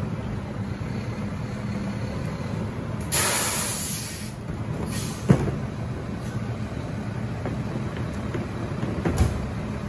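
Mack LR rear-loader garbage truck's diesel engine running steadily. A sharp hiss of released air comes about three seconds in and lasts about a second, a shorter hiss follows, then a sharp clack a little after five seconds and a thump near the end.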